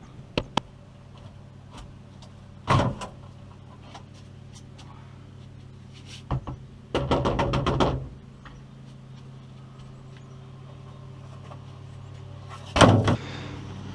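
Sharp knocks and clatter of wooden door panels being worked loose from a boat, with a rapid run of knocks about seven seconds in and single knocks before and near the end, over a steady low hum.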